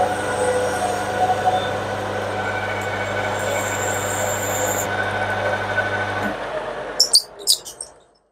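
Metal lathe running under a cut, turning a large metal part: a steady motor hum with a whine and cutting noise. About six seconds in it is switched off and runs down, with a few clicks as it comes to a stop.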